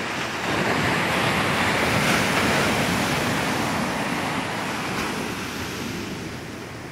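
Sea surf breaking and washing up a sandy beach: a steady wash of noise that swells about half a second in, peaks around two seconds, then slowly fades.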